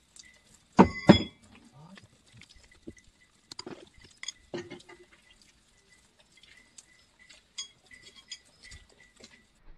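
A thrown knife strikes a wet end-grain wooden target about a second in: two sharp hits close together with a metallic ring. Lighter knocks and clinks follow as the knives are pulled from the wood and handled.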